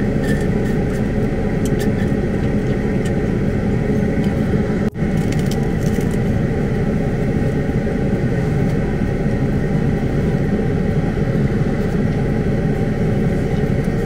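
Steady rumble of a vehicle's engine idling, heard from inside the cab, with a brief dropout about five seconds in.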